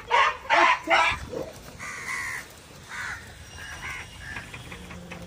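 Harsh animal calls: three loud ones in quick succession in the first second, then fainter calls.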